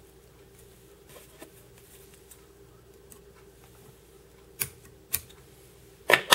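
Handling sounds at a metal fly-tying vise: faint rustling of thread and material work, then two sharp clicks close together and a louder double knock near the end, over a faint steady hum.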